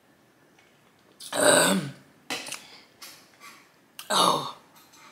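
A woman burping loudly twice, about a second in and again about four seconds in, with a few softer short sounds between.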